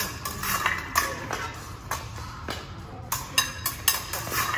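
Épée blades clinking and striking against each other with a metallic ring, in irregular sharp beats about two or three a second, mixed with footwork on the fencing strip.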